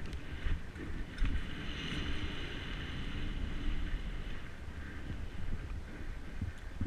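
Wind buffeting the microphone over the low rumble and rattle of a mountain bike riding fast on a dirt trail, with a few knocks from bumps. A faint higher whine sits over it from about one and a half seconds in until about four and a half seconds.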